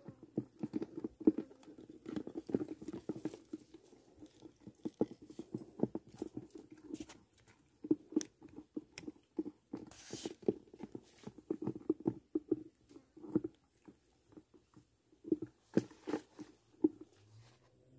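Close-up handling noise of a spinning rod and reel in the hands: irregular taps, knocks and rustles, dense at first and then in clusters, with a brief swishing rustle about ten seconds in.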